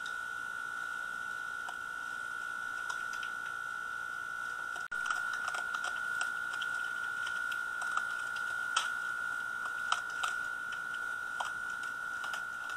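Raccoon eating from a dish: scattered small clicks and crunches of chewing and of the dish, coming more often after a brief cut-out about five seconds in, over a steady high whine.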